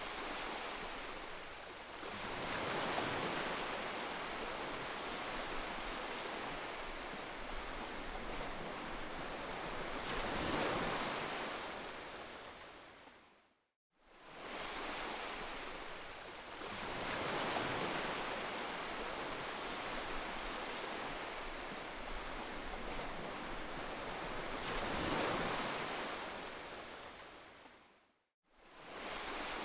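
Heavy rain falling steadily, its hiss swelling and easing every few seconds. It fades out to silence and back in about 14 seconds in and again near the end, where the recording loops.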